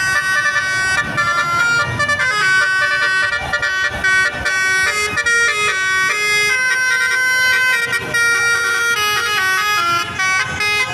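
Basuri telolet bus horn, a musical air horn, playing a quick melody of steady notes that step up and down without a break.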